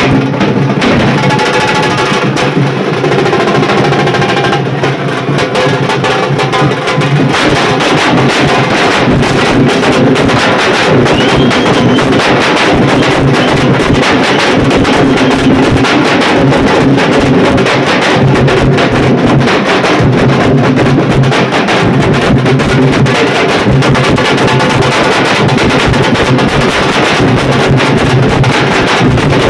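Nashik dhol ensemble: several large barrel dhol drums beaten with sticks, playing a loud, fast, dense rhythm together.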